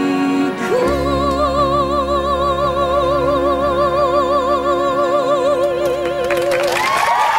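A female musical-theatre singer holds a long, climactic final note with wide vibrato over a sustained orchestral chord. Near the end the orchestra's chord cuts off and audience applause breaks out.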